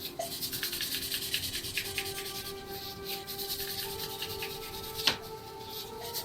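Honda CB450 poppet valve being hand-lapped into its cylinder-head seat with a lapping stick and fine grinding paste: a quick, repeated gritty rubbing as the valve is spun back and forth, with a steady ringing note underneath and a single sharp click about five seconds in. This is the rough grinding sound that turns smooth as the valve face and seat lap in.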